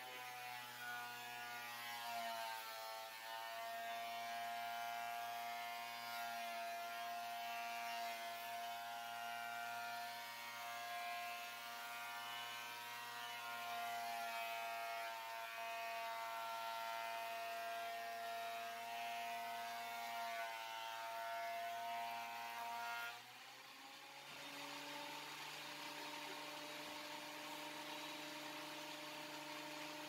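WEN benchtop thickness planer cutting a pine board: the motor runs steadily at a lowered, loaded pitch while the board feeds through the cutterhead. About three quarters of the way through, the pitch rises and the sound gets quieter as the board clears and the planer runs free.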